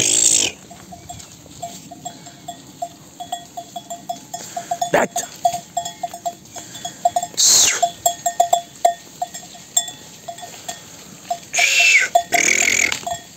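A flock of sheep on the move, the bells on the sheep clinking irregularly throughout, with a few loud bleats, the loudest at the very start, about halfway through and near the end.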